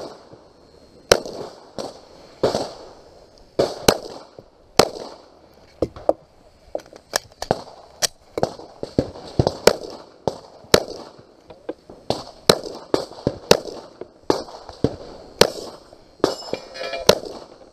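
A semi-automatic pistol fired over and over through a timed course of fire: sharp shots at irregular spacing, often in quick pairs, with short pauses between groups of shots.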